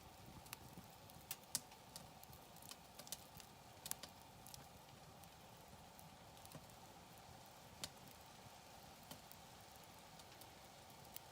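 Campfire wood crackling and popping. Irregular sharp snaps come thick in the first few seconds, then sparser, over a faint steady hiss.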